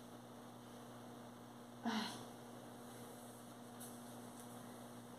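Quiet, low, steady hum, with one brief soft noise about two seconds in.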